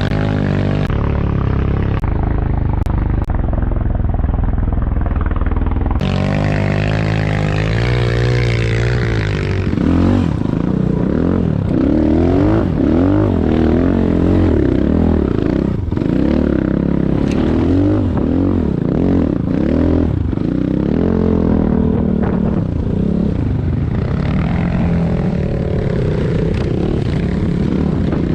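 Enduro motorcycle engine being ridden with constant throttle changes, its pitch rising and falling every second or two.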